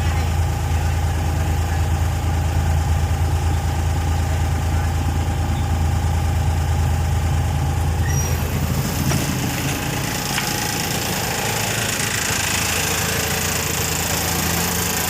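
Suzuki K6A three-cylinder engine idling steadily as it warms up, with a new coolant temperature sensor fitted. About nine seconds in, the low hum weakens and a broader, higher noise takes over.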